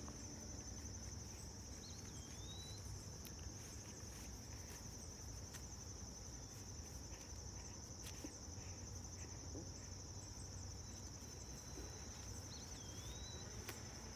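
Insects trilling in a steady, high-pitched chorus, faint, over a low rumble. Twice, about two seconds in and again near the end, a short curling chirp cuts through.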